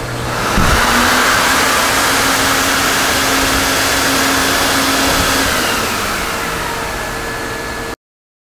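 Vacuum suction under a rug-washing table running steadily, pulling flood water down through a wet rug with a loud rushing noise; a low hum in it stops about five and a half seconds in.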